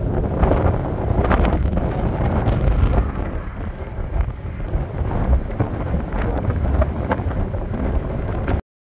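Wind buffeting the microphone: a loud low rumble with gusty crackles that cuts off suddenly near the end.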